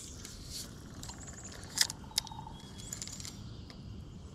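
Spinning reel being worked on a light fishing rod: a short run of fine, rapid ticks from the cranked reel and two sharp clicks about half a second apart, a little under two seconds in, over steady outdoor background noise.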